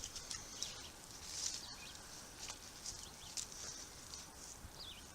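Faint high bird chirps, short falling notes, over soft scattered rustling and ticks of hands feeling through loose garden soil.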